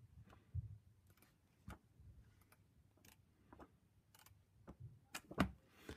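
Pages of a paperback comic album being turned by hand: soft, scattered paper taps and clicks, the loudest pair about five seconds in.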